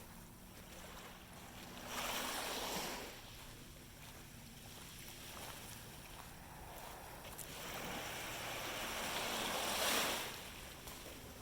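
Small sea waves washing up on a sandy beach: one wash about two seconds in, then a longer one that builds and breaks near the end.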